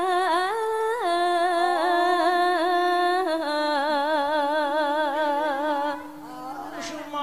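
A sinden, a female Javanese gamelan singer, sings a long, ornamented held phrase with wide vibrato and pitch slides. About six seconds in her voice stops, leaving a quieter, steady lower tone.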